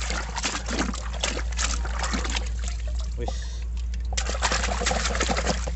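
Muddy water splashing and sloshing in a plastic tub as a hand scrubs a small plastic toy truck under the water, with a short pause a little past the middle.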